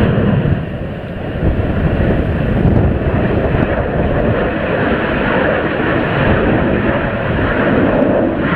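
Business jet's rear-mounted turbofan engines at takeoff thrust: a loud, steady jet roar as the aircraft lifts off and climbs away.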